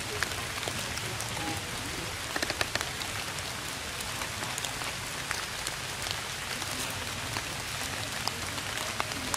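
Steady rain falling, with nearby raindrops landing as sharp ticks scattered through it and a quick run of louder ones about two and a half seconds in.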